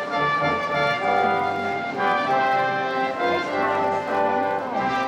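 Music from brass instruments playing sustained chords that change every second or so.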